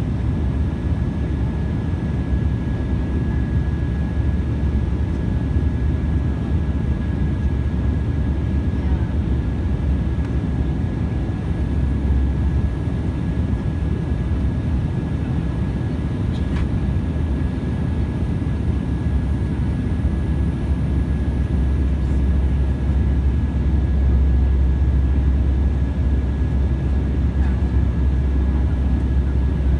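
Steady in-flight cabin noise of an Embraer E195 heard from a window seat beside the wing-mounted GE CF34 turbofan: an even, low rumble of engine and airflow, with a thin, steady whistle above it.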